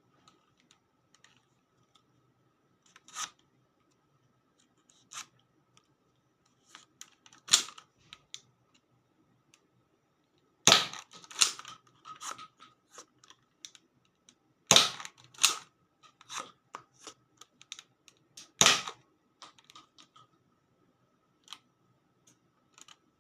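Plastic clicks and rattles of a Nerf Elite Firestrike dart blaster being handled and reloaded, with three loud sharp snaps about four seconds apart in the middle.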